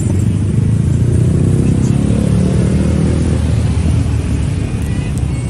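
Motor vehicle engine running close by, a loud low rumble that rises slightly in pitch about two seconds in.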